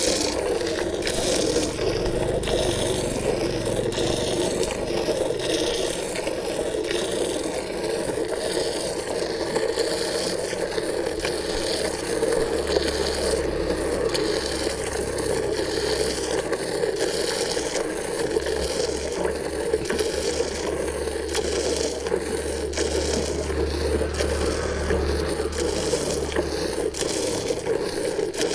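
Hand milking a buffalo: milk squirting from the teats into a pail in a steady rhythm of hissing jets, about one to two squirts a second.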